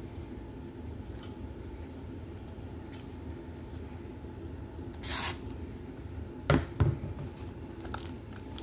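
A shrink-wrapped plastic Blu-ray case being handled, over a low steady hum. About five seconds in there is a short rustle of the plastic wrap, then two sharp knocks close together about a second later, the loudest sounds.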